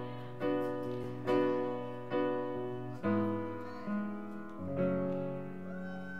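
Grand piano played live, with chords struck steadily a little under once a second and left to ring. The last chord is held through the end.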